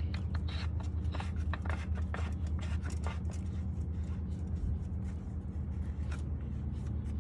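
Oil filter housing cap being threaded on by hand, with many short clicks and scrapes, busiest in the first few seconds, over a steady low hum.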